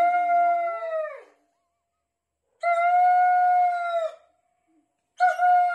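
A dog poisoned by a toad howling three times, each a long, steady cry of about a second and a half that drops in pitch at its end.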